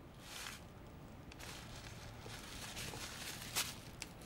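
Clear plastic bag rustling softly in several bursts as it is handled, with two small sharp clicks near the end, the first the louder.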